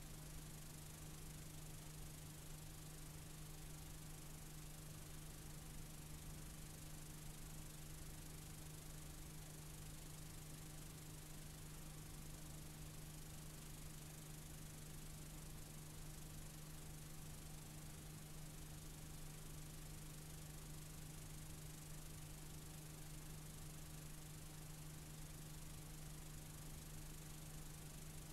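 Faint, steady hiss with a low hum underneath, from a blank stretch of old videotape: tape and playback noise with no recorded sound on it.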